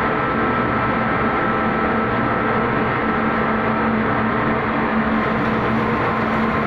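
Steady drone of a ship's machinery, an even rushing noise with a low hum and a couple of higher steady tones.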